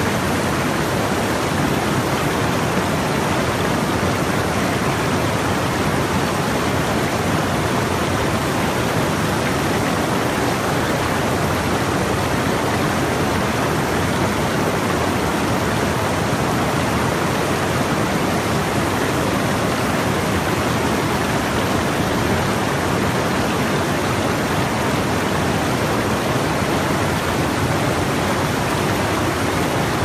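Spring-fed San Marcos River pouring over a low rock cascade: a steady, unbroken rush of falling and churning water.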